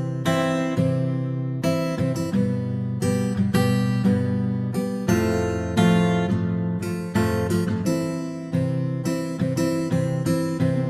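Instrumental music on strummed acoustic guitar, with chords struck about twice a second.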